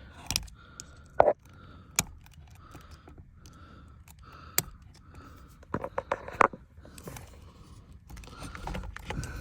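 Sharp clicks and scrapes of the steering wheel's plastic airbag and horn tabs being pried up by hand and tool, with a faint beeping repeating in the background.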